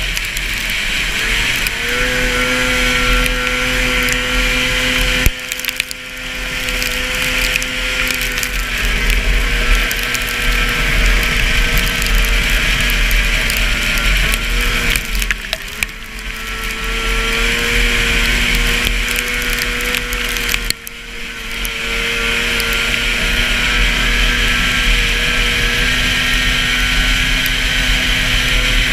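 Racing snowmobile's 440 two-stroke engine held at high revs, easing off three times, about five, fifteen and twenty-one seconds in, and winding back up each time, with wind buffeting the microphone.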